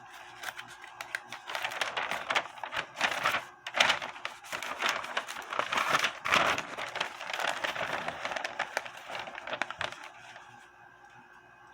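Paper rustling and crinkling in irregular handling sounds with small cracks, as a sheet of instructions is turned over and handled. It stops about ten seconds in.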